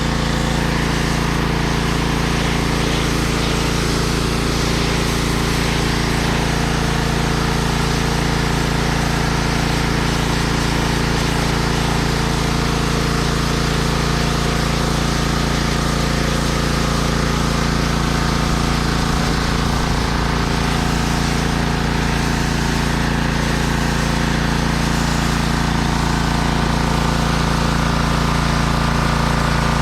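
Pressure washer running steadily while its spray blasts across concrete: a constant motor drone under a hiss of water.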